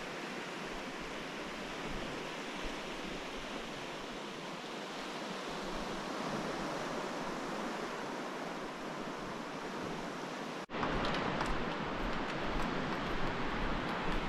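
Ocean surf washing steadily. About ten seconds in the sound cuts off sharply and gives way to a louder rushing noise with small ticks.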